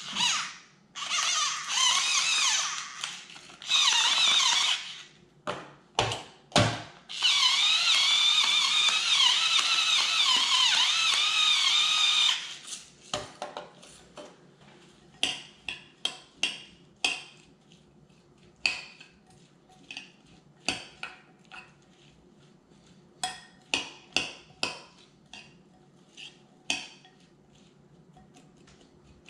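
Electric salt and pepper grinder whirring in three runs, the last and longest lasting about five seconds, its motor pitch wavering as it grinds. Then a spoon clinks again and again against a ceramic bowl as pineapple salsa is stirred.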